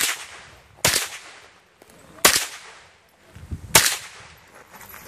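Four rifle shots, each a sharp crack with a short ringing tail, spaced unevenly about one to one and a half seconds apart.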